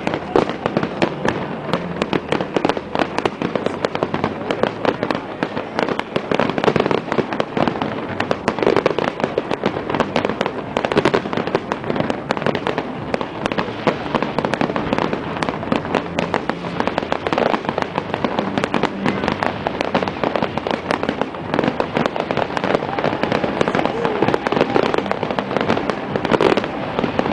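Fireworks display: aerial shells bursting in a dense, unbroken barrage of bangs and crackling.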